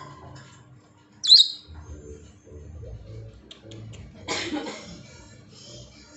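Lovebird giving one loud, sharp, high chirp about a second in while being hand-fed, with a second, noisier sound about four seconds in and low handling rumble.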